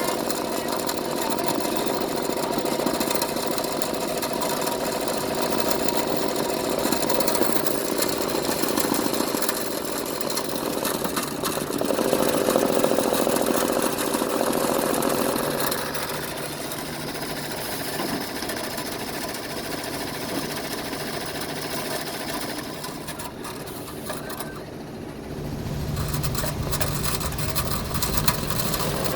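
A machine running with a grinding noise while it operates. The sound eases a little past the halfway point, dips briefly near the end, then comes back with a deeper hum.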